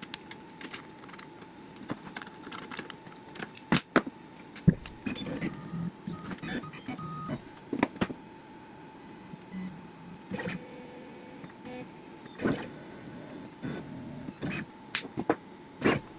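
Scattered sharp clicks and knocks over a faint steady hum: workshop handling noises, with no power tool running yet.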